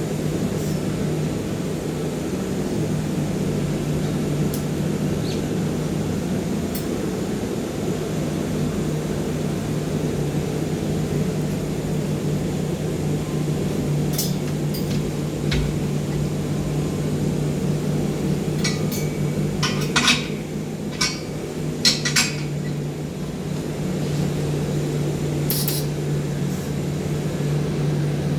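Steady low machine hum in a welding shop, with a few sharp metallic clinks of metal on metal between about 19 and 23 seconds in and another near 26 seconds.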